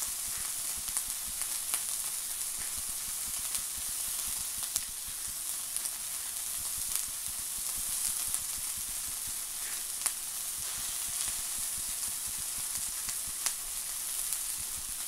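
Beef burger patty sizzling steadily in a non-stick frying pan on low heat, with occasional sharp pops of fat.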